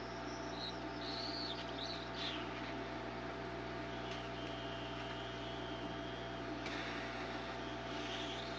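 A steady electrical or machine hum with many even tones, with a few short high chirping glides over it in the first two seconds and a thin steady high whistle in the middle.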